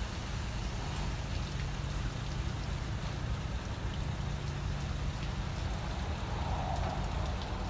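Water spraying and dripping in a rollover car wash onto the car and the wet bay floor: a steady rain-like patter with scattered drips over a low, steady machinery hum.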